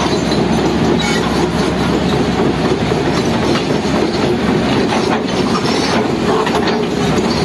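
Heavy diesel machinery running steadily with a continuous rumble and metallic clatter.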